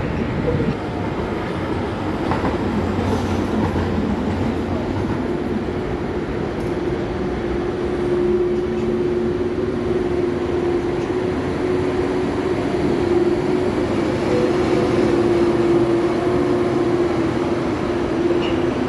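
A rail vehicle running past with a steady rumble; about eight seconds in a steady whine joins it and holds.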